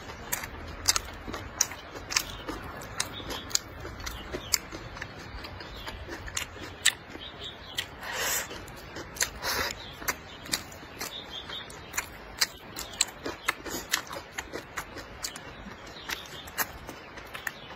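A person eating close to the microphone: a steady run of wet chewing and sharp lip smacks and clicks, with two longer slurps about eight and nine and a half seconds in.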